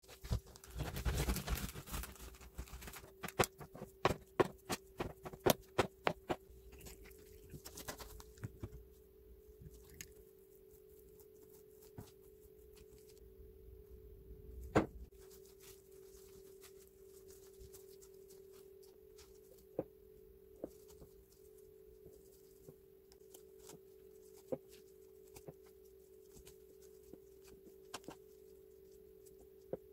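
Crusty baguette being handled with gloved hands: the crust crackles at first, then comes a quick run of sharp clicks and cracks, followed by occasional single taps and handling noises. A steady low hum runs underneath.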